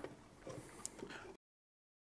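Faint clicks and small scrapes of a plastic tail-light lens being handled and its screws started by hand, with one sharper click a little under a second in. The sound cuts off completely about one and a half seconds in.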